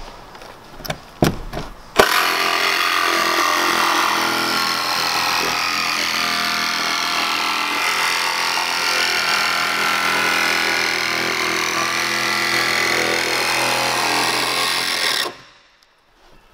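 Cordless jigsaw cutting a straight line through the van's sheet-metal roof. A few knocks come first, then the saw starts about two seconds in, runs steadily for about thirteen seconds and stops abruptly.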